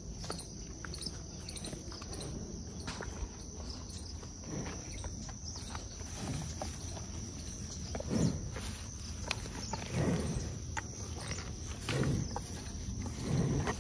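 Water buffaloes moving on foot as they are led. A few heavier low, rough sounds come about every two seconds in the second half.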